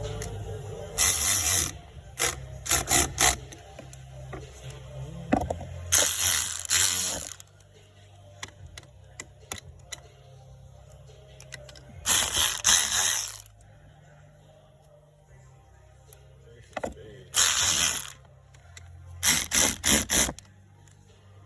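Ratchet wrench clicking in short back-and-forth runs, about six separate runs with pauses between them, typical of loosening or tightening a battery terminal nut.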